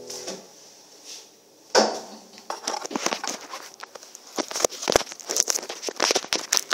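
The last chord of a nylon-string classical guitar dies away, then a single knock and a run of close rustling, clicking handling noise as the recording phone or camera is picked up and moved.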